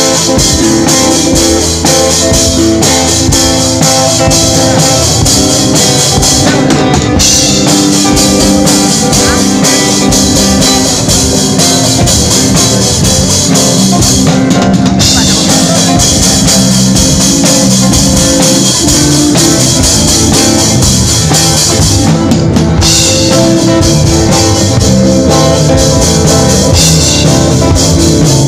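Live rock band playing loud: a drum kit with cymbals and bass drum right at the microphone, with electric guitar underneath.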